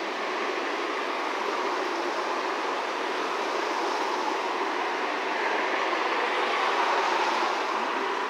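A train running on nearby rails: the steady noise of wheels on track, growing a little louder about two-thirds of the way through.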